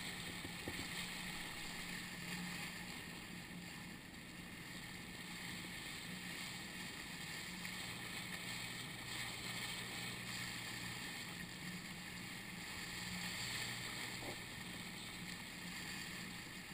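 Rubber boat's outboard motor running steadily, a low hum under the hiss of wind and water along the hull.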